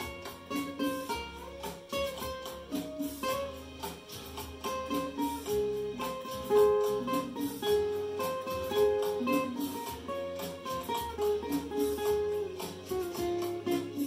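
Acoustic guitar picking out a song's melody, mostly in single plucked notes.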